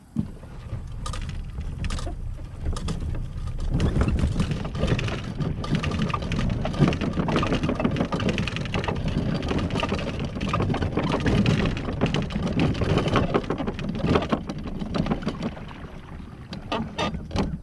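Boat running on the water, with wind buffeting the microphone in gusts.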